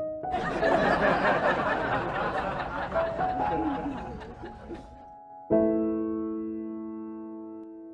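Soft piano background music. For about the first five seconds a louder, noisy sound with a few voice-like glides lies over it, then fades. A new piano chord starts near the middle and is held, dying away slowly.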